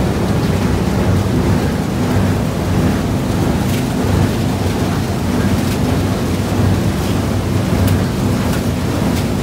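Steady, loud rumble of waste-processing plant machinery and conveyor belts running, with a few faint ticks about four seconds in.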